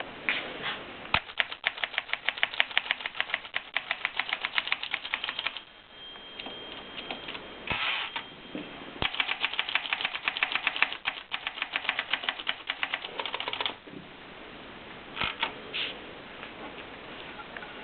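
Klein-Adler portable typewriter being typed on: two long runs of rapid keystrokes separated by a pause about halfway through, then a few single strokes near the end.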